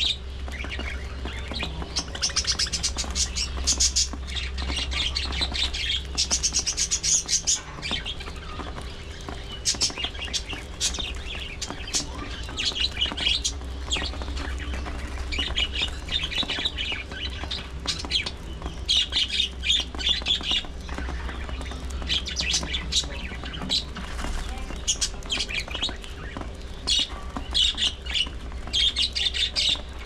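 A small flock of budgerigars chirping and chattering in repeated bursts while feeding on loose seed, mixed with small sharp clicks of seeds being husked.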